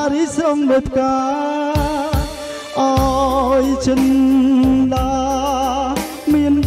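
A man singing with a wavering vibrato into a handheld microphone, amplified through a mixer over a backing track with a steady drum beat and bass.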